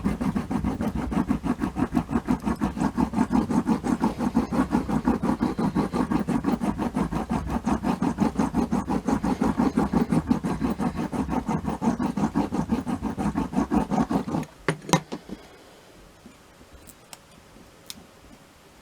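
Quick back-and-forth rubbing or rolling strokes of a hand tool over the breadboard, several a second, stopping abruptly about fourteen seconds in. A couple of sharp clicks follow, then faint ticks.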